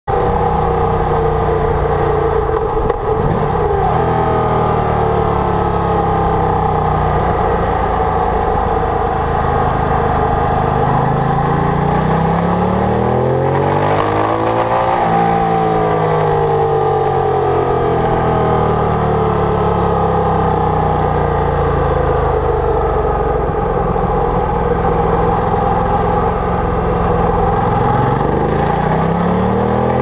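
Ducati Multistrada DVT's L-twin engine under way, heard from the bike itself. Its pitch rises as it accelerates to a peak about halfway, falls away slowly, and climbs again near the end.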